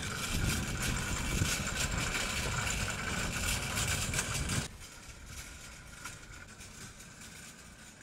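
Steady outdoor background rumble and hiss, cut off abruptly about four and a half seconds in, after which a quieter steady outdoor background remains.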